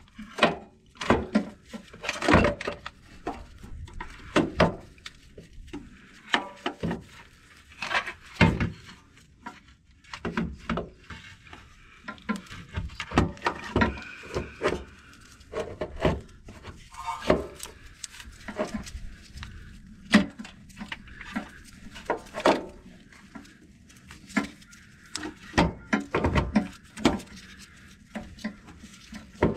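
Loose starter motor being worked by hand through a tight space, knocking and clunking irregularly against the surrounding metal, with a few light scrapes between the knocks.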